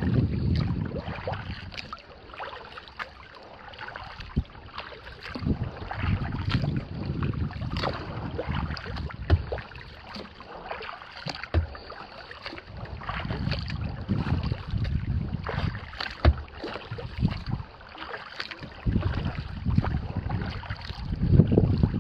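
Water splashing and lapping against a plastic kayak hull as it is paddled, many small splashes throughout. Gusts of wind buffet the microphone, loudest near the start and again near the end.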